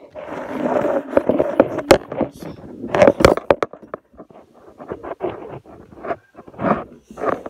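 Phone handling noise: fabric scraping and rubbing right over the microphone, then a string of sharp knocks and bumps as the phone is moved about, loudest about three seconds in.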